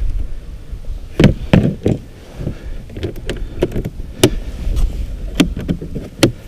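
Otter hard plastic rod case being shut, with a string of sharp plastic clicks and knocks as the lid is pressed down and its latches are snapped closed.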